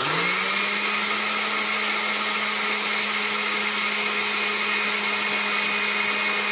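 Electric blender with a glass jar grinding dry-roasted finger millet (ragi) grains into flour. The motor has just spun up and runs at a steady high speed, a loud steady hum under the hiss and rattle of the dry grains whirling in the jar.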